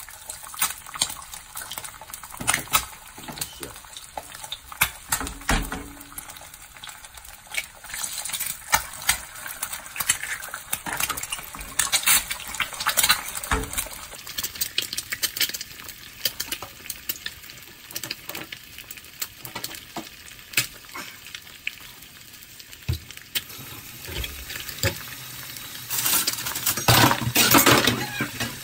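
Eggs frying in oil in a non-stick frying pan: a steady sizzle with many sharp crackles of popping oil, louder and denser near the end.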